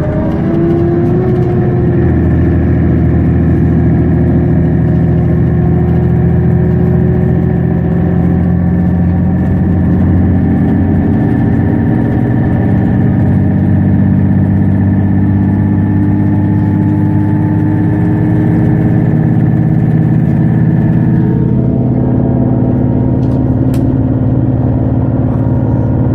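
Mercedes-Benz Citaro G articulated bus's engine and ZF Ecomat automatic gearbox running under way, a steady drone whose pitch climbs slowly. The engine note shifts about 21 seconds in, like a gear change.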